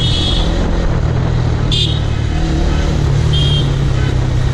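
Motorcycle fitted with an aftermarket exhaust, cruising at a steady engine speed with wind rushing past. Three short high beeps cut through: one at the start, one about two seconds in and one near the end.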